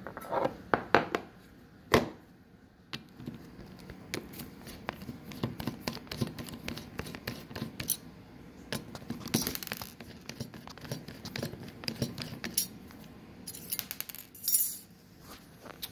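Small clicks, taps and metallic clinks of hands working on a hard drive and its mounting screws and bracket, with a couple of sharper knocks early on and brief scrapes later.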